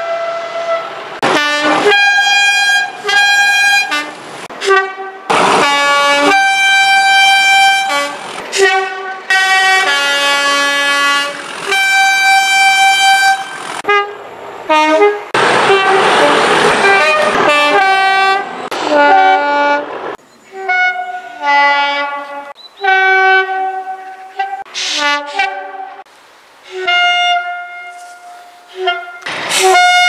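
British Rail Class 37 diesel locomotives sounding their two-tone air horns: a long series of separate blasts, high and low notes in turn, across several passing trains. About halfway through, a loud rush of locomotive engine noise covers the horns for a couple of seconds.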